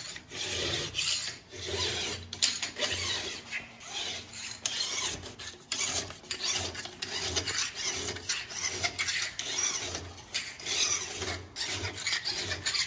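File in a jig rasping back and forth across the steel rails of a Stihl chainsaw bar, in repeated scratchy strokes. The rails are being dressed flat to one even plane because one rail is worn lower, so the chain won't favor one side.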